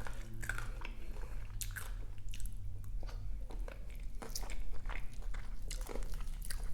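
Close-miked eating: a person chewing and biting food, with scattered short crisp crunches and clicks.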